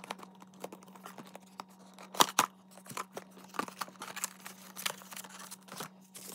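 Cardboard toy box being opened by hand: a flap pulled open, then a paper instruction leaflet slid out, giving a run of scrapes, clicks and crackles with two sharp snaps about two seconds in.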